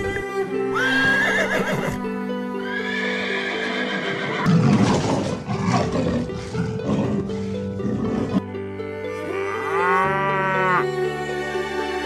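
Background music with several animal calls laid over it, separate pitched cries that bend in pitch, and a rougher stretch in the middle.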